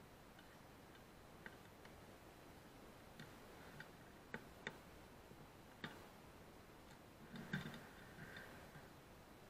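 Near silence, broken by a few faint, scattered clicks and ticks, with a small cluster of louder ones about seven and a half seconds in.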